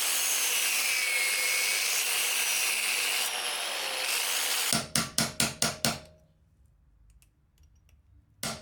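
A grinder grinding down the pin heads of a motorcycle chain's master link, its whine dipping as it bites, stopping about four and a half seconds in. Then six quick hammer blows on a punch to drive the master link pins out, and another blow or two near the end.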